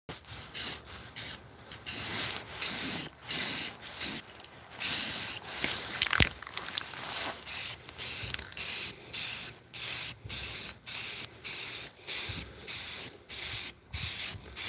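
Rust-Oleum 2X aerosol spray-paint can hissing in many short bursts as the nozzle is pressed and released, coming about twice a second in the second half.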